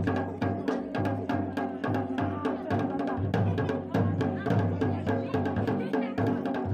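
Pahari dhol, a two-headed barrel drum, beaten with a stick and the bare hand in a steady driving rhythm: deep strokes about two to three times a second with quicker sharp strikes between them.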